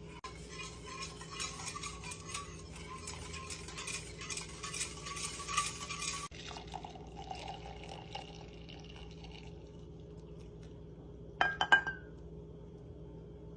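Hot chocolate being made in a glass: about six seconds of liquid being poured and stirred, full of small ticks, which stops abruptly, then a softer stretch. Near the end come three or four sharp, ringing clinks against glass.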